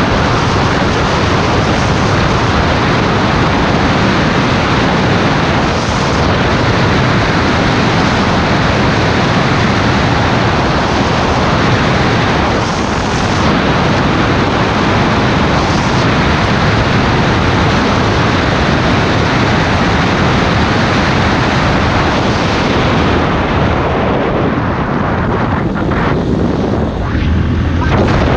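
Heavy wind noise on the microphone of a motorcycle rider at speed, a loud steady rush that drowns out everything else. It thins out a little near the end.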